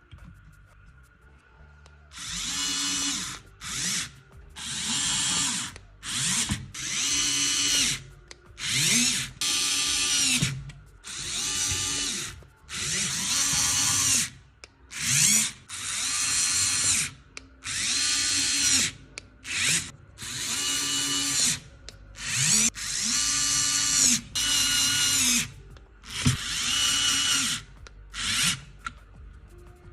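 Electric drill-like motor triggered in a run of short bursts, each one spinning up to speed, holding briefly and winding down, starting about two seconds in.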